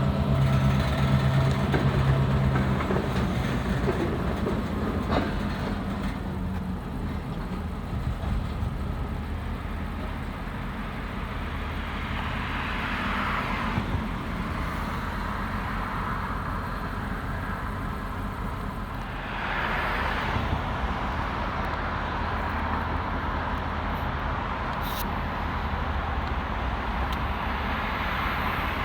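Diesel freight train passing: the locomotive's engine fades away in the first few seconds, then freight cars roll by with continuous wheel rumble and clatter on the rails.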